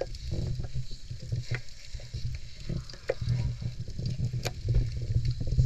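Underwater sound through a GoPro's waterproof housing just below the surface: a muffled low rumble of moving water with scattered sharp crackling clicks, one louder click about four and a half seconds in.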